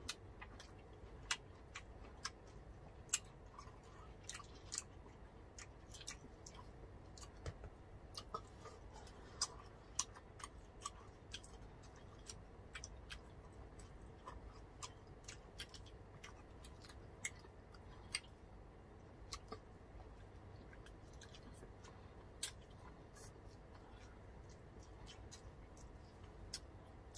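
Close-up eating sounds of two people chewing grilled pork belly, squid and rice by hand: faint, irregular wet clicks and smacks of chewing.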